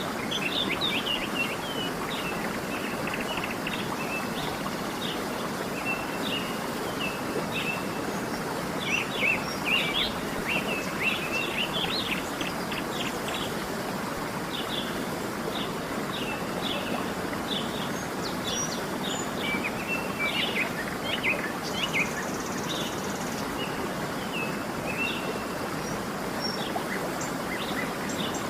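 Steady rush of a waterfall, with small birds chirping over it in short, quick notes. The chirping is busiest about nine to twelve seconds in and again around twenty seconds in.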